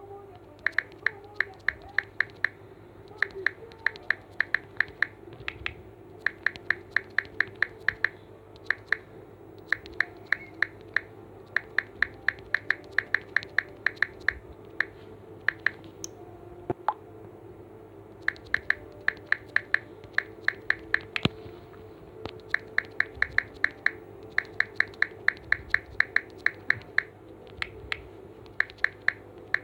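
Phone keyboard tap clicks in quick runs of several clicks, about four or five a second, with short pauses between runs, as someone types a message.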